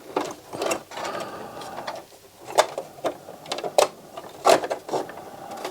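Irregular clicks and light rattles of small parts of a CD changer's disc-clamping mechanism being handled and fitted by hand.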